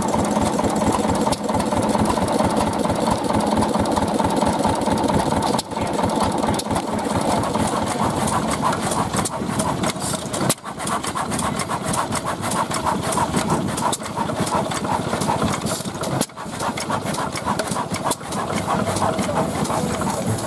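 Antique stationary gas engines running one after another, a busy mechanical clatter of firing and valve gear with an abrupt change between engines about every five seconds.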